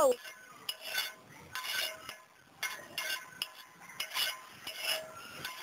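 Metal spoon scraping and clinking against a large metal wok as it is stirred, a stroke every half second to a second, each with a short metallic ring. A brief downward-gliding tone opens the sound.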